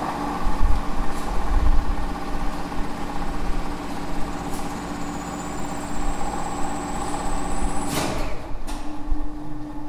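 Zremb two-speed elevator winch with its cage induction motor running steadily with a hum and whine, a faint high whine joining about halfway. About eight seconds in a contactor clacks loudly and the hum breaks off briefly before resuming: the motor being switched from fast to slow speed for braking, with the braking resistors in circuit.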